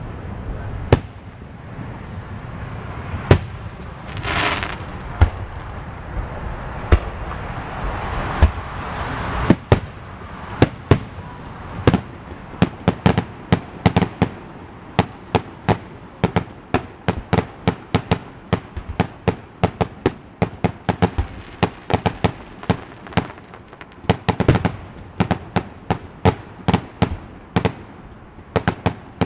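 Aerial fireworks shells bursting in a display, heard from a distance as sharp pops rather than deep booms. A few spaced bangs at first, then from about ten seconds in a quick run of several pops a second.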